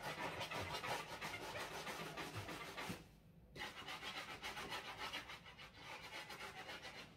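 Medium-bristle shoe-cleaning brush scrubbing the toe cap of a Yeezy Boost 350 Zebra's knit upper in quick back-and-forth strokes, pausing briefly about three seconds in before scrubbing on a little more softly.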